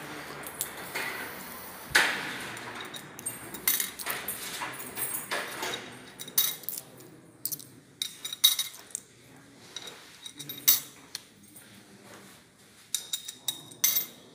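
Coins clinking and dropping through the metal slot of an offering box: a string of sharp, irregularly spaced metallic clicks and chinks, the loudest about two seconds in.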